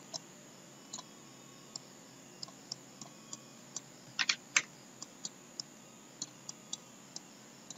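Irregular clicking at a computer: single sharp clicks, two or three a second, with a louder pair about four seconds in.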